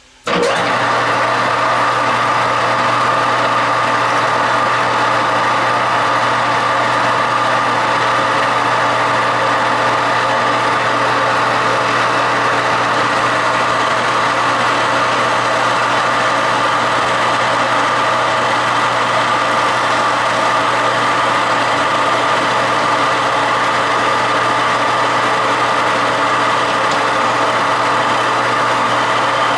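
Metal lathe switched on just after the start and then running steadily during a boring pass for a thread's tap-drill bore: a loud, constant machine hum with a whine above it.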